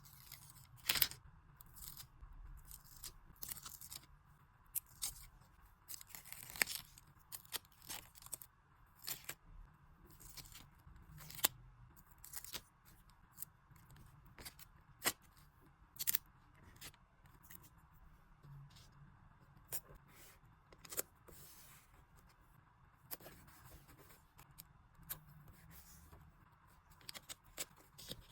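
Paper crafting for a journal sticker collage: scissors snipping, with paper and stickers being torn, peeled and handled. It comes as scattered short, sharp clicks and rustles at irregular intervals.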